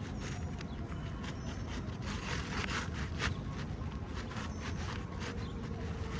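Asphalt roofing shingle scraping and rubbing against the surrounding shingles in a series of short strokes as it is worked and tucked into place.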